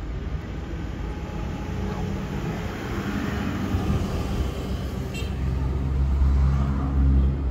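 Steady road-traffic rumble from the city streets, with one vehicle's engine growing louder for a couple of seconds near the end.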